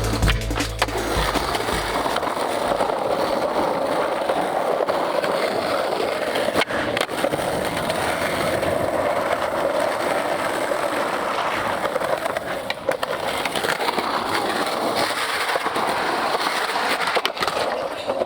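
Skateboard wheels rolling fast over pavement, a steady rolling noise with a few sharp clicks along the way.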